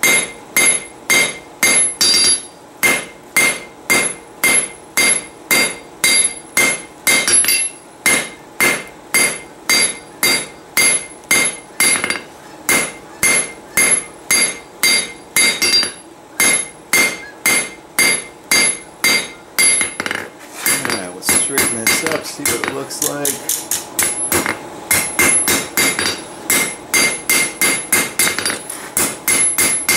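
Hand hammer striking hot steel rebar on an anvil, drawing the spoon handle out square, each blow ringing off the anvil. The blows come steadily at about two a second, then about two-thirds through they speed up to roughly four a second, with the ringing running almost continuously.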